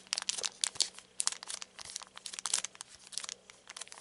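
Foil wrapper of a Mega Man Battle for Power trading-card booster pack crinkling in the hands as it is picked up and handled, a quiet run of irregular crackles.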